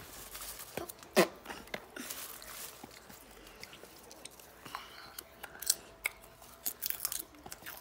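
A child eating popcorn: irregular crunching and chewing close to the microphone, with one louder snap about a second in.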